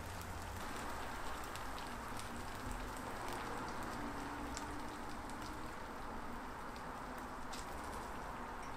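Chicken feet in spicy sauce sizzling in a frying pan on a portable gas burner: a steady crackling hiss with scattered small clicks.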